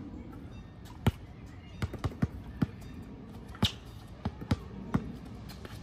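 Basketball being dribbled on an outdoor hard court: about nine sharp bounces at uneven spacing, several in quick runs as the ball handler works the ball.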